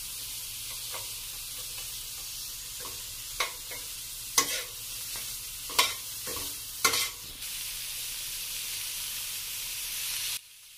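Shredded vegetables (bamboo shoots, carrot, peppers) sizzling in hot oil in a stainless-steel wok as they are stir-fried, with a metal spatula clinking and scraping against the pan about five times. The sizzle cuts off abruptly just before the end.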